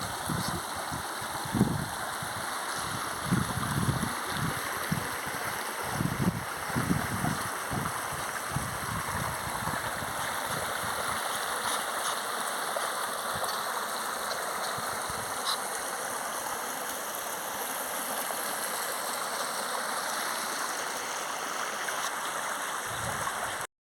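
Creek water flowing over rocks, a steady rushing, with irregular low rumbling bumps in the first ten seconds or so. The sound cuts out briefly near the end.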